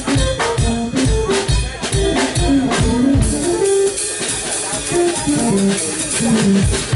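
Live jazz jam of keytar and drum kit: the keytar plays a moving line in the low-middle register over the drums. The drumming thins out about three seconds in, leaving mostly the keys and an occasional low drum stroke.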